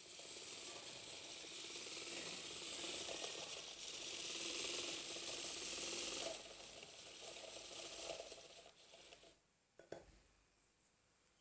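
Small 12-volt motor of a homemade toy washing machine running, turning the water and cloth with its impeller: a faint, steady mechanical whir with a thin high whine. It drops about six seconds in and dies away a few seconds later as the machine is switched off, and a single short click follows near the end.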